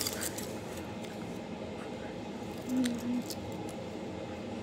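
A few faint, short clicks from a homemade copper-pipe glove finger being handled, over steady background hiss, with a brief low hum from a voice about three seconds in.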